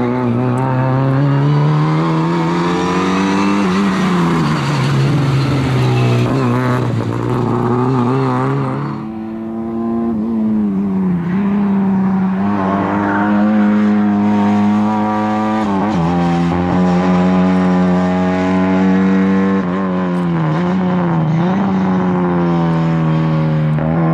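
Lada 2107 rally car's engine revving hard as the car is driven around a tight course, its pitch swinging up and down again and again with throttle and gear changes. There is a short drop about nine seconds in.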